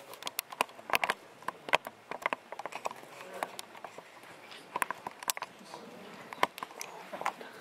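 Irregular sharp clicks and knocks close to the microphone: handling noise as the camera is turned and repositioned.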